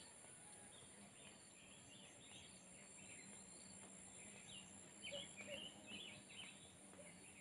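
Faint outdoor ambience: scattered small bird chirps over a steady high hiss, with a few clearer chirps about five seconds in.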